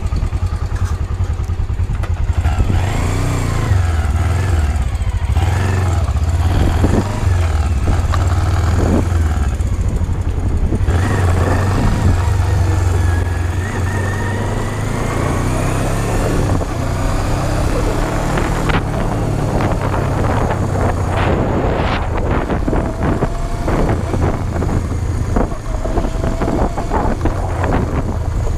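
Kawasaki GPz250 Belt Drive's parallel-twin engine running as the bike pulls away and rides at low speed, its note rising and falling.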